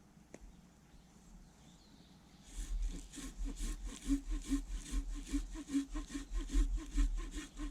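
Small hand saw cutting through a thick wooden log, starting about two and a half seconds in with quick, even back-and-forth strokes, about four a second.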